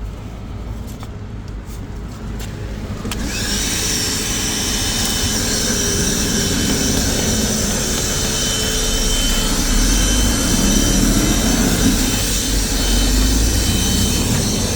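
A few clicks, then an Einhell cordless handheld vacuum cleaner switches on about three seconds in and runs steadily with a high whine.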